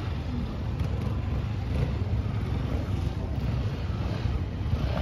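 Off-road motorcycle engines running at low speed, with a steady low rumble of wind on the microphone.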